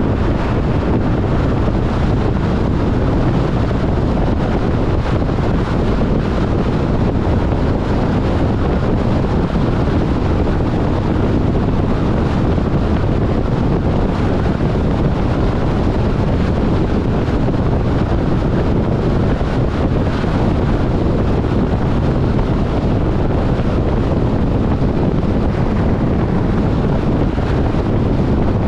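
Steady wind and road noise of a car driving at highway speed, with wind buffeting the microphone.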